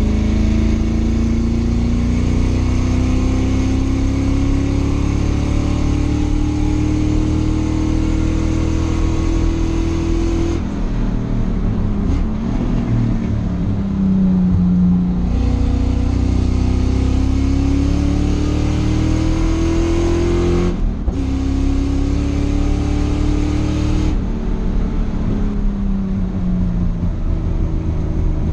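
Race car engine heard from inside the stripped cockpit, pulling hard through the gears. Its pitch climbs steadily for about ten seconds, then breaks and drops as the driver lifts and downshifts for a corner. It climbs again, with a quick upshift about 21 seconds in and another lift and downshift near the end.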